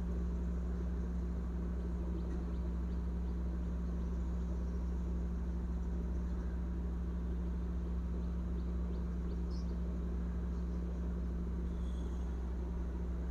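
Steady low background hum at an even level, with a few faint light clicks about two-thirds of the way in and again near the end.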